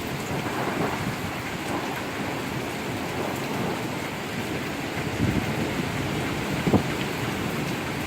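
Heavy downpour falling steadily, with thunder rumbling low under the rain and a couple of short low thumps about five and seven seconds in.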